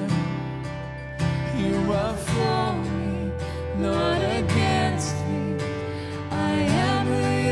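A song with a singing voice over guitar accompaniment, typical of a worship song.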